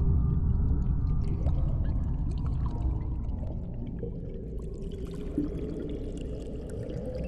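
Dark, low ambient drone from the film's sound design, slowly fading. A steady held tone rises out of it in the second half.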